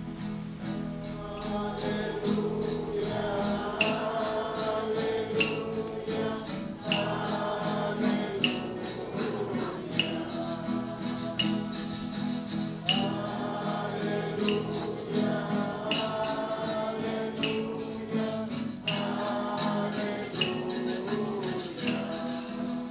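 Church song sung to a shaker keeping a steady beat, with stronger accents about every one and a half seconds. It is the sung Gospel acclamation that leads into the Gospel reading.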